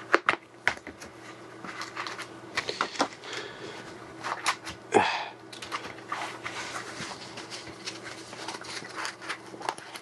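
Cardboard box and paper being handled as a product box is opened: a string of small clicks, taps and rustles, with a longer rustle about halfway through, over a low steady hum.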